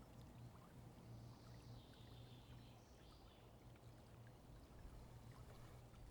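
Near silence: a faint ambience bed of running water with a low steady hum.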